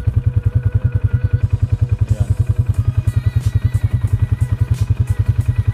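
Farm bike engine idling, a steady low pulse of about a dozen beats a second.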